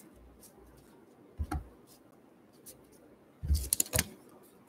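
Hands handling a trading card at a table: two soft thumps about a second and a half in, then a quick cluster of clicks and taps near the end.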